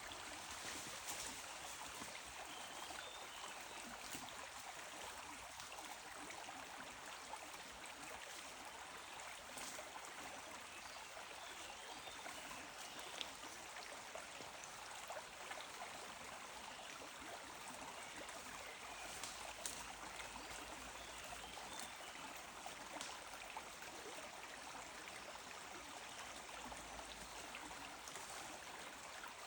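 Faint, steady running water of a small stream trickling, with scattered small clicks.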